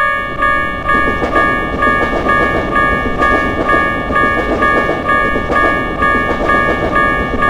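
Japanese level-crossing alarm bell ringing in a steady, repeated pattern at about two rings a second, over the loud rumble and clatter of a passing train.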